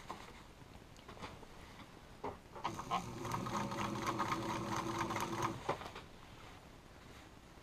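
Vintage black electric sewing machine stitching through a coat's nylon shell in one steady run of about three seconds, starting between two and three seconds in and stopping near six seconds. Light fabric handling around it.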